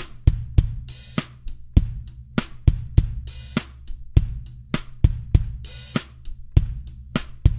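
Background music with a steady drum-kit beat over a low bass line.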